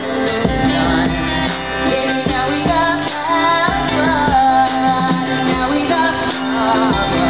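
Live acoustic band: a woman singing lead into a microphone over strummed acoustic guitars, holding one long note about halfway through.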